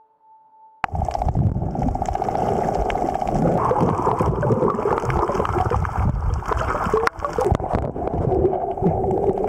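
Underwater camera audio: a muffled rush and gurgle of water with a low rumble and a steady hum, cutting in abruptly about a second in after a faint held chime. There is a sharp click about seven seconds in.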